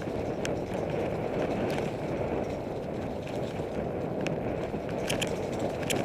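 Mountain bike riding down a dirt singletrack, heard through an action camera's microphone: a steady low rumble from the ride, with scattered sharp clicks and rattles from the bike.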